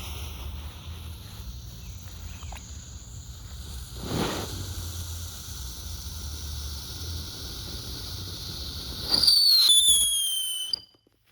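Tasmanian Devil novelty fountain firework burning with a steady hiss and a thin high whistle. About nine seconds in it turns loud, its whistle falling in pitch, then cuts off suddenly.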